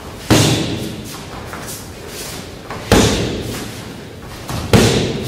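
Boxing glove smacking into a handheld focus mitt: three rear straight punches, each a sharp smack trailing off over about a second, spaced about two seconds apart.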